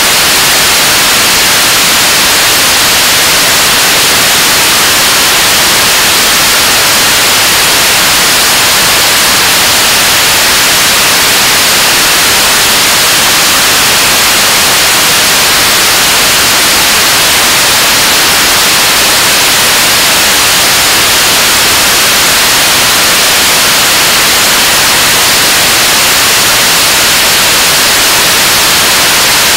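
KSLV-II (Nuri) 7-tonne-class kerosene/liquid-oxygen rocket engine firing steadily in a static ground test: a loud, even rushing noise, strongest in the high register, unchanging throughout.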